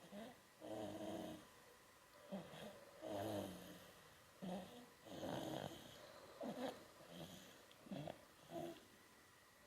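A four-month-old baby snoring softly: a run of short snores spaced unevenly, about eight or nine of them.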